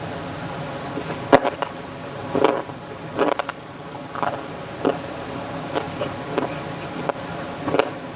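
Clay being crunched: short, crisp, irregular crunches, about ten of them, the loudest about a second and a half in. Under them runs a steady background hum and hiss, the sound disturbance picked up by the new microphone.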